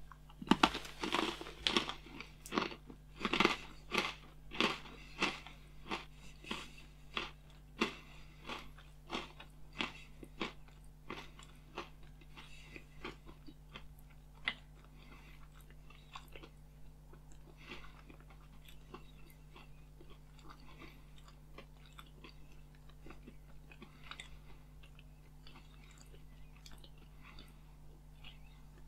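A man biting into and chewing a small German pretzel, with loud, regular chews about one and a half a second that turn quieter after about twelve seconds.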